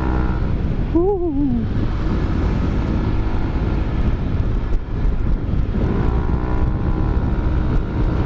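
Yamaha NMAX 155 scooter's single-cylinder four-stroke engine through a Rob1 Racing aftermarket exhaust, pulling under throttle while riding, with heavy wind and road rumble. A brief wavering note comes about a second in, and the engine note climbs again near the end.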